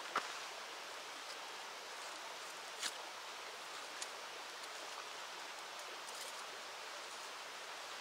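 Steady rushing of a river, with a few small clicks: one near the start, then two about three and four seconds in.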